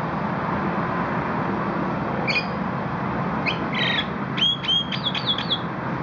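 Javan myna calling: a string of short, sharp whistled notes from just before halfway to near the end, over a steady background hum.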